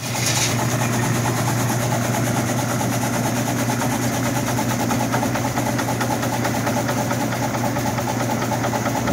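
Jenny hot-water pressure washer running: its pump unit gives a steady hum under the hiss of the water jet spraying onto pavement.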